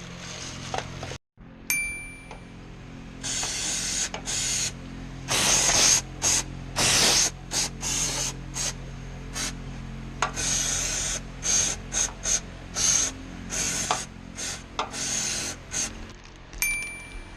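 Plastic bag crinkling and rustling in irregular bursts while wrapped around an engine oil filter as it is unscrewed and pulled out.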